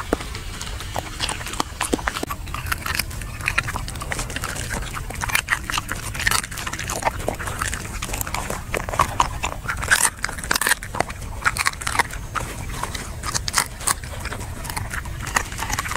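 A dog chewing and crunching grilled fish: a dense, irregular run of crunches and wet clicks of the jaws, over a steady low hum.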